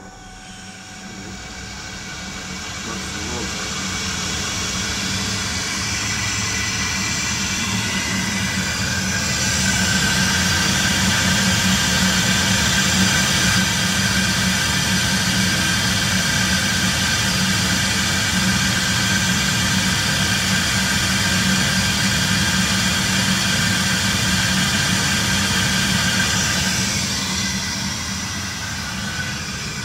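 EBMpapst RG148 combustion-air fan of a Baymak Lectus 115 kW gas boiler speeding up over about ten seconds, with the burner firing. The steady hum and rush then hold at high output and ease slightly near the end. The boiler is modulating up after its setpoint was raised to 85 °C for thermal disinfection.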